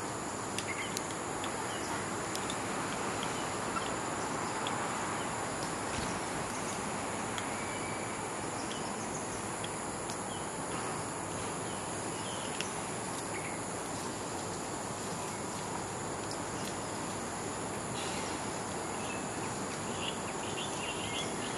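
Outdoor ambience: a steady high-pitched insect drone over an even background hiss, with a few faint clicks and a cluster of short chirps near the end.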